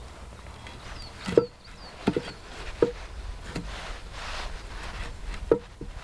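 Wooden poles clacking against one another in about half a dozen short, sharp knocks as they are lashed together with cord, the loudest about a second and a half in, over faint rustling.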